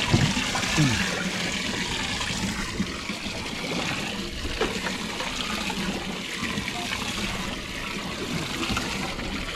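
Boat livewell aerator running, a steady rush and trickle of water spraying into the livewell. Two short falling squeaks near the start.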